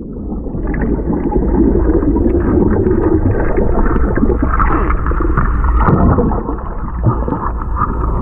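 Muffled underwater noise of a swimming pool, heard with the microphone under water: churning water and bubbles over a steady low hum, with scattered small clicks.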